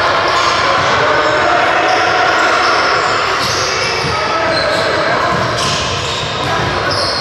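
Basketball game echoing in a large gym: a basketball bouncing on the hardwood court over a steady, reverberant hall din.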